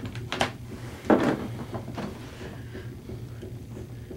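Handling noise as objects are moved and set down: a light knock about half a second in and a heavier thump just after a second in, then quieter shuffling over a steady low hum.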